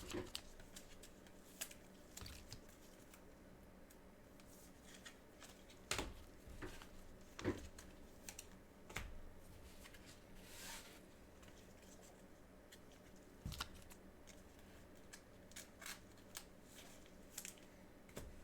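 Trading cards being handled and sorted: faint, scattered soft clicks and taps of card stock, with a short rustling slide about ten seconds in.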